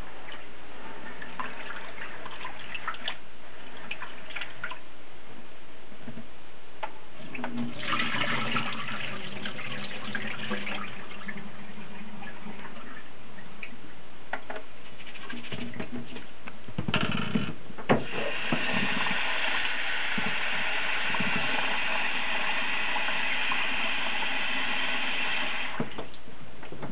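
Sushi rice being washed by hand in a glass bowl of water at a kitchen sink: swishing and splashing of rice and water, the starchy water tipped off with a splash about two-thirds of the way through, then a kitchen tap running steadily into the bowl to refill it. This is the rinsing of the rice until the water runs clear.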